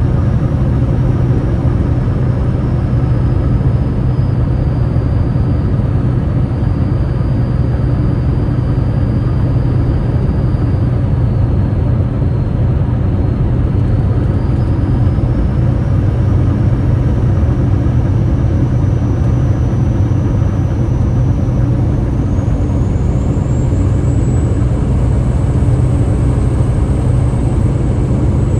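Waterfall rushing, a loud and steady low rumble of falling water that does not let up.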